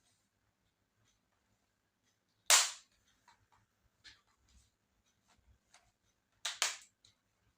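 Sharp knocks and small clicks from handling a laptop and its plastic case: one loud knock about two and a half seconds in, a few faint clicks, then a quick double knock near the end.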